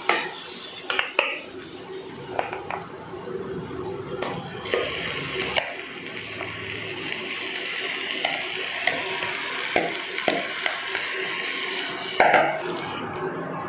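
Masala and yogurt-marinated mutton sizzling in hot oil in a steel pressure cooker, with scattered knocks of a utensil on the pot. The sizzle becomes a steady hiss a few seconds in, and there is a louder clatter near the end.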